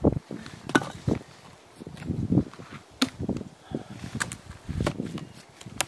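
Firewood being split by hand: irregular dull knocks with a few sharp cracks of wood.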